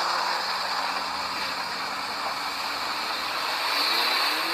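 Steady rushing hiss of a muddy toy jeep being washed clean. It starts abruptly and runs on without a break.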